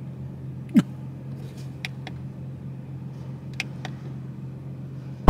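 Dodge SRT engine idling steadily while it warms up, a low even hum. There is one short sharp sound about a second in and a few light clicks later.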